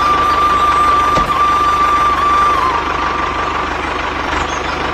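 Toy RC tractor running, with a steady high whine that cuts out about two and a half seconds in, over a continuous engine-like sound with an even low pulsing.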